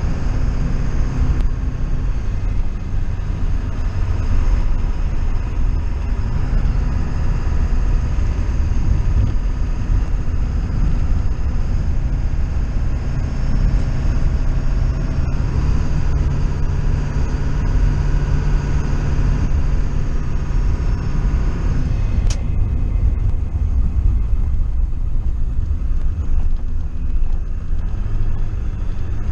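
Steady vehicle rumble with a low hum that changes pitch a couple of times.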